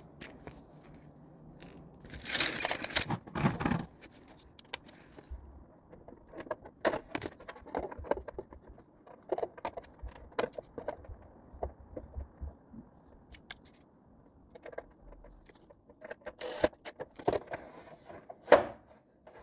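Plastic drive-cover shroud of a Bowflex VeloCore exercise bike being handled and pressed back into place. It gives scattered clicks, knocks and small clinks, with a longer scraping rustle about two seconds in.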